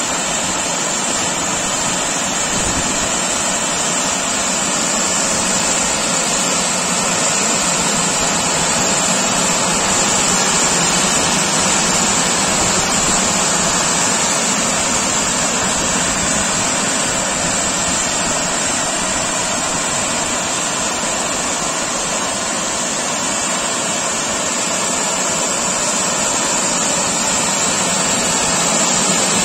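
Drying blowers of a Robowash 180 Eco Smart touchless car-wash gantry running: a loud, steady rush of air with a high whine on top.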